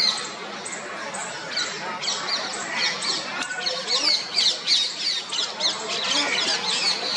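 Birds chirping in a quick run of short, high calls over the background chatter of a crowd.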